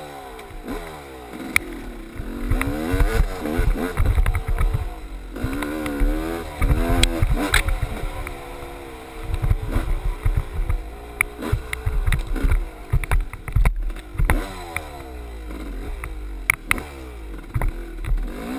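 GasGas dirt bike engine revving up and down again and again while riding a rough trail. Wind and bumps knock at the microphone.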